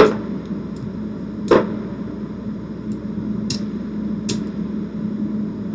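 Casino chips clicking against each other as bets are set and adjusted on a craps table layout: a handful of sharp, separate clicks, the first the loudest, over a steady low hum.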